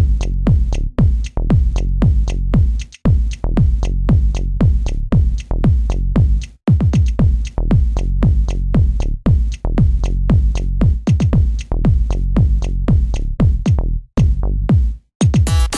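Electronic background music with a steady driving beat, about four kick-drum hits a second over heavy bass, with a few brief breaks.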